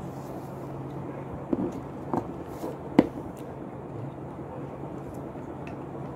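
Multimeter test probes and a clear plastic relay being handled: three short clicks and taps as the probe tips meet the relay pins, the loudest about three seconds in, over a steady low hum.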